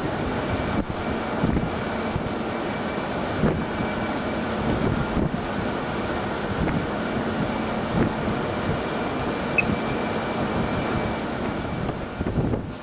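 Steady mechanical rumble and hiss with wind on the microphone. Near the end it gives way to gusty wind buffeting.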